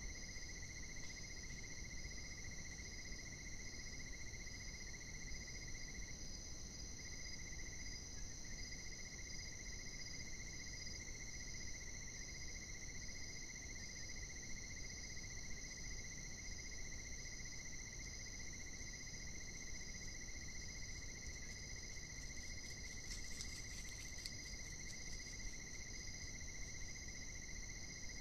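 Night insect chorus: several steady, high-pitched trills at different pitches, over a low hiss. A few faint crackles come about three-quarters of the way through.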